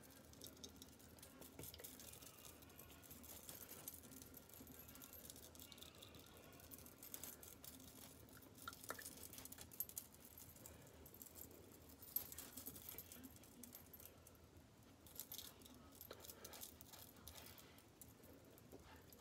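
Near silence, with faint irregular soft taps and rustles of a makeup sponge dabbing foundation onto skin.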